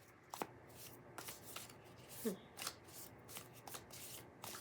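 A deck of thin, gold-edged tarot cards being shuffled by hand: a run of soft, irregular card clicks and brushes.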